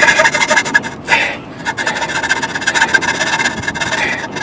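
Hand saw cutting the teeth of a small plywood ratchet wheel, in quick back-and-forth strokes, with a short break about a second in.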